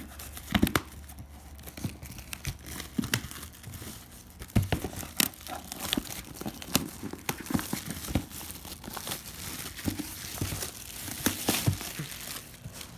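Plastic shrink-wrap being pulled off a cardboard box and crumpled, an irregular crinkling with sharp crackles.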